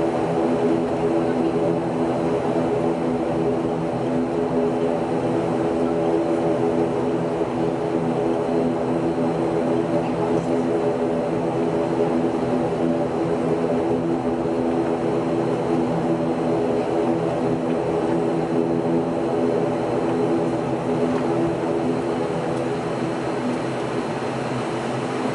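Airliner's engines heard from inside the cabin while the plane taxis before take-off: a steady drone with a hum of several even tones.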